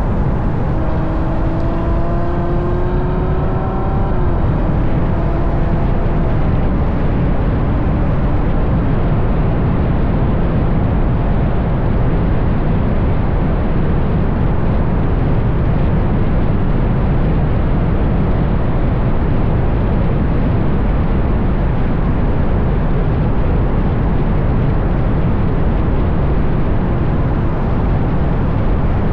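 Ferrari GTC4Lusso's V12 with a Capristo exhaust, its engine note rising under acceleration for the first few seconds. Then a steady loud rush of wind and road noise takes over as the car cruises, heard on a microphone mounted outside the car.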